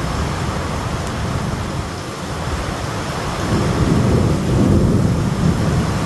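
Steady rain with a low rumble of thunder that swells louder a little past halfway.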